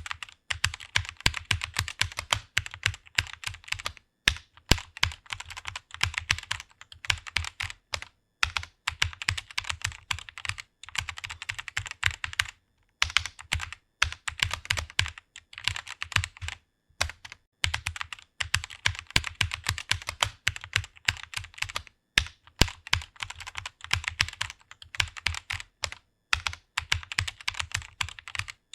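Fast typing on a computer keyboard: quick runs of key clicks, broken by short pauses every few seconds.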